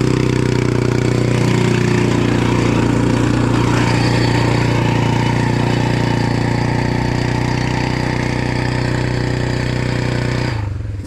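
Snowmobile engine running at a steady throttle, its note held at an almost constant pitch, then dropping off abruptly near the end as the throttle is let off.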